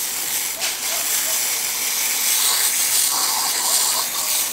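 Compressed-air blow gun hissing steadily as it blows soot, ash and sand off freshly cast aluminum skulls.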